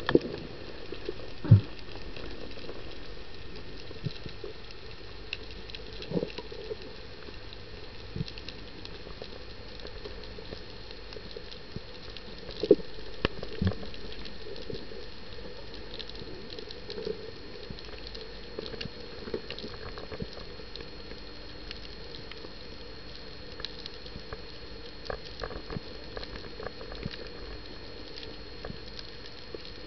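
Underwater ambience recorded by a camera in its housing: a constant fine crackle with many small scattered clicks. A few louder knocks stand out, about a second and a half in and twice around the middle.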